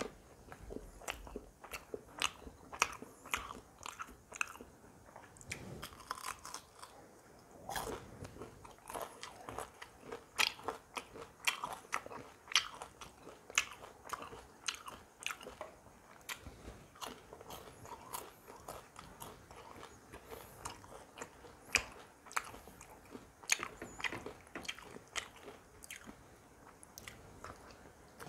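Close-miked chewing of roti and chilli chicken: irregular wet mouth clicks, several each second.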